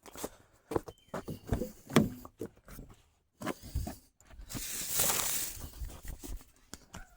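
Belongings being handled and put down: scattered knocks and clicks, with a longer rustle of bag or fabric about four and a half seconds in.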